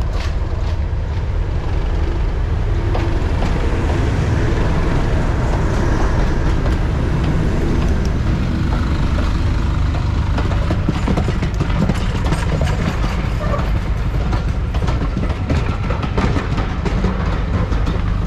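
English Electric Class 37 diesel locomotive passing close by under power, its twelve-cylinder engine a steady low drone, followed by its train of coaches rumbling past, with wheels clicking over the rail joints in the second half.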